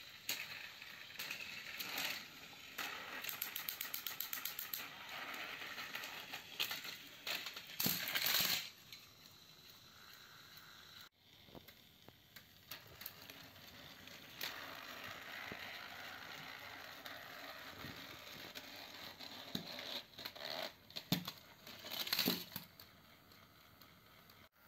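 Plastic toy trains and track being handled, with scattered clicks and rattles. A quick run of ticks, several a second, about three seconds in, and louder rattling bursts around eight and twenty-two seconds.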